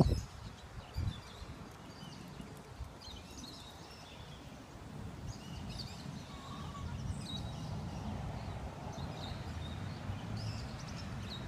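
Outdoor ambience with faint, scattered high bird chirps and calls over a low rumble that grows louder about halfway through.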